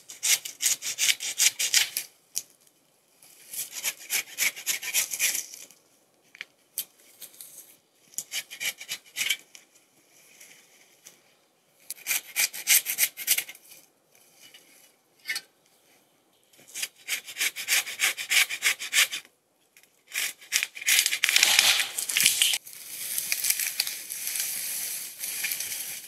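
Hand saw cutting through fallen tree limbs in short spells of rapid back-and-forth strokes, about four or five a second, with pauses between spells.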